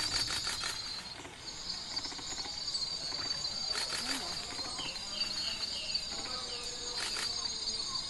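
Steady high-pitched insect chorus, a forest buzz of crickets or cicadas, under clusters of sharp clicks near the start, about halfway through and near the end, with a few short falling chirps in between.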